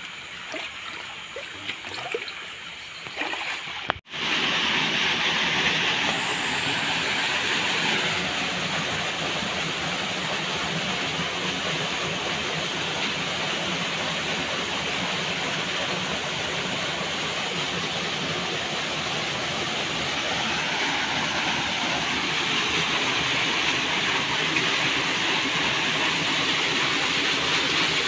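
Flowing river water: quieter lapping with small splashes at first, then, after an abrupt cut about four seconds in, a steady, even rush of water.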